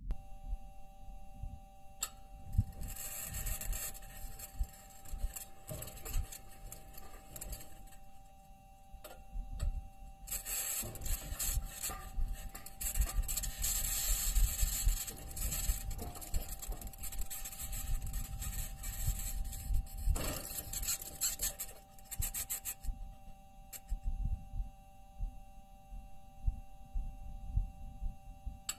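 NASA's recording of the Perseverance rover driving on Mars: its metal wheels grinding and scraping over rock in long rough stretches, with steady high tones running through and a low rumble underneath.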